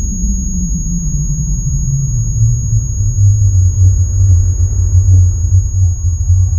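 Low rumbling drone that slides down in pitch over the first two or three seconds and then holds steady, with a thin, faint high whine above it.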